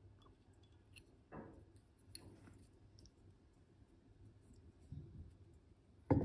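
Faint clicks and short scratches of a slim metal tool working against a glazed earthenware vase, with one louder knock near the end.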